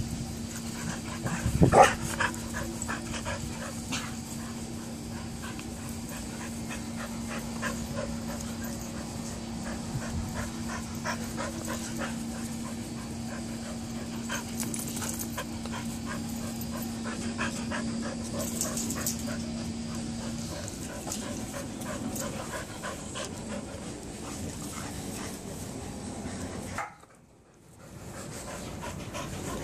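Australian shepherds and other dogs playing rough, panting hard, with a loud sharp sound about two seconds in. A steady low hum stops about two-thirds of the way through, and the sound drops out briefly near the end.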